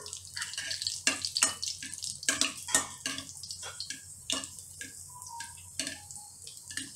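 Tempering of mustard seeds, cumin and split dals spluttering in hot oil in a wok, with irregular sharp pops and crackles over a low sizzle.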